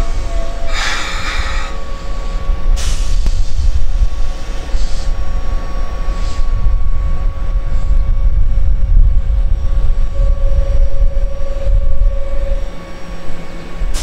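Keihan 5000 series commuter train running past at close range: a heavy low rumble of wheels and cars, with a few sharp clatters in the first three seconds and a thin steady whine throughout that grows louder for about two and a half seconds around ten seconds in.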